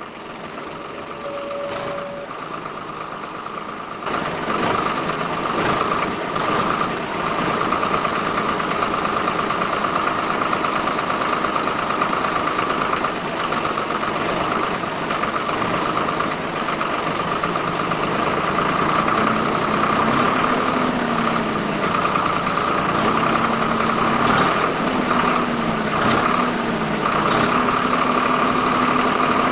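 Small DC electric motors of a model toy tractor and its rotary tiller attachment running with a steady whine, which gets louder about four seconds in. In the second half a lower hum wavers up and down in pitch.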